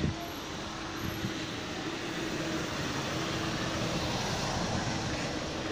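A motor vehicle's engine running steadily, heard as a low hum over general street noise and swelling slightly in the middle; a single sharp knock right at the start.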